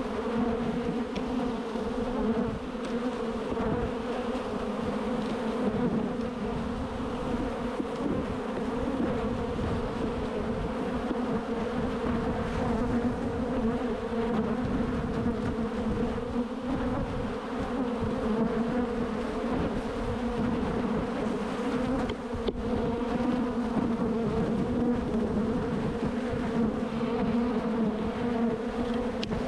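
Swarm of honeybees buzzing in large numbers around an opened hive as its frames are being worked, a dense, steady hum.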